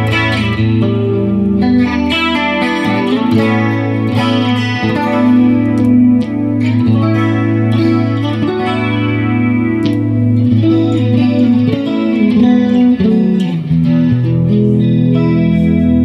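Clean electric guitar through an Artec humbucker-sized P90 bridge pickup, playing ringing chords and picked single notes with a dimension-style chorus from a Line 6 M5 effects pedal. The tone is jangly.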